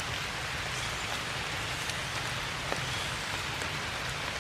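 Steady rain falling, with scattered individual drops ticking against surfaces.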